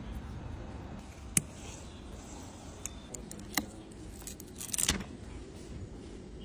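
Small repair tools clicking and tapping against a phone's metal and glass parts: a handful of sharp, light clicks, the loudest about a second and a half in, over a low steady hum.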